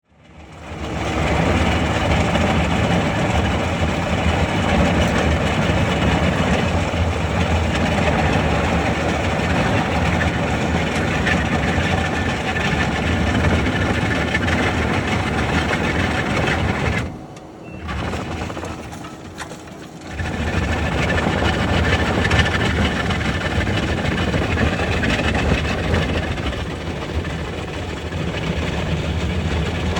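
Skid steer running under load with a road planer attachment working, a steady dense mechanical din. It drops off abruptly for about three seconds near the middle, then resumes at full level.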